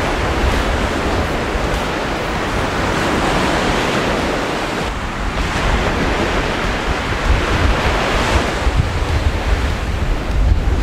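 Surf washing in, a steady hiss that swells and eases, with wind buffeting the microphone in low rumbles.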